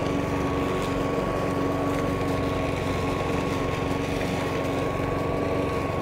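Hyundai 56 cm-deck petrol lawn mower running steadily while cutting grass, its engine note even with a thin steady whine over it.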